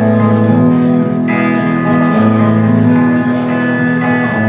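Live rock band playing an instrumental stretch without vocals: electric guitars hold sustained chords that change every second or two.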